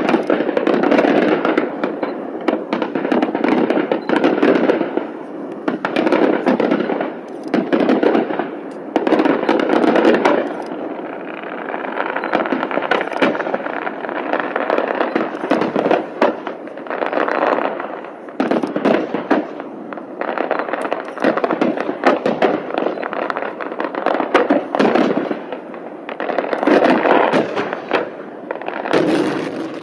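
Fireworks display: aerial shells bursting in a dense barrage of overlapping bangs and crackling, in loud clusters every second or two without a break.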